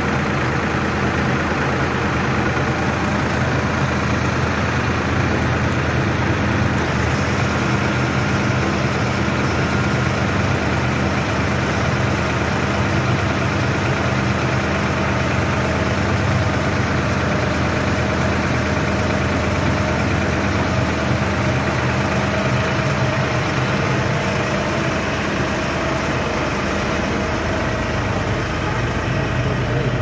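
Silage baler running steadily: a loud, continuous machinery drone with a steady low hum. The low hum deepens about three-quarters of the way through.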